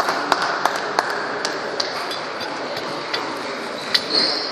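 Irregular clicks of table tennis balls hitting bats and tables from rallies around a large hall, over a steady background murmur. A short high squeak comes about four seconds in.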